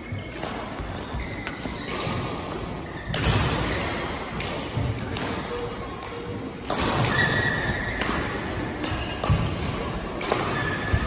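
Badminton rally: sharp, repeated racket hits on the shuttlecock in a large echoing hall, with louder stretches of general hall noise rising about three seconds in and again about seven seconds in.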